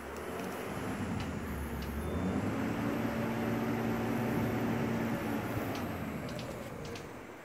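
A passing engine, swelling to a steady hum for a few seconds around the middle and then fading away.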